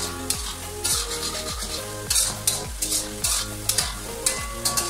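Spatula stirring and scraping chicken pieces around a sizzling iron karahi on high flame, the chicken and tomatoes being bhuna-fried in their oil, with a run of uneven scrapes. Background music with a steady beat plays underneath.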